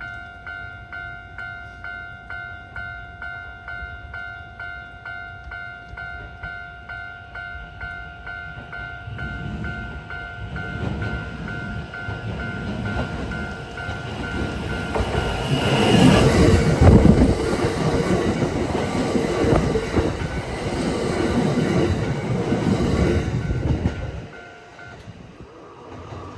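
A Japanese level-crossing alarm rings in a steady, evenly repeating two-tone ding, about two strokes a second. A Kintetsu 8A series electric train approaches and passes over the crossing, its wheels clattering over the rail joints. The train is loudest past the middle and fades quickly near the end, and the alarm stops shortly after.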